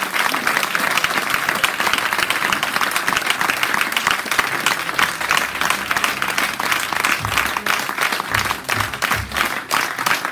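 Audience applauding, a dense and steady clatter of many hands clapping.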